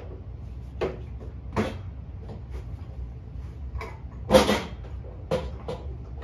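Whiteboard markers knocking and clattering as they are picked through in the board's tray: a handful of short, sharp knocks, the loudest a little past the middle, over a steady low hum.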